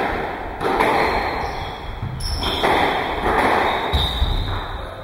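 Squash rally in a reverberant court: several sharp hits of the rubber ball off rackets and walls, about one every second or so, with short high squeaks from shoes on the wooden floor.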